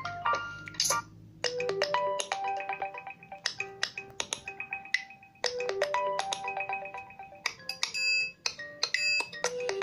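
LG K40S ringtone playing: a melody of short, bright notes, the same phrase starting over about every four seconds.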